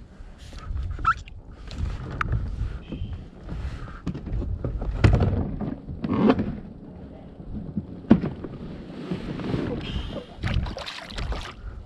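Irregular clunks, knocks and rustling of a person handling a fish and gear while shifting about in a plastic fishing kayak, with one sharp knock about eight seconds in.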